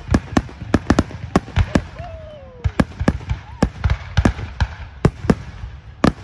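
Aerial fireworks shells bursting in rapid, irregular succession: several sharp bangs a second, with a short lull about two seconds in.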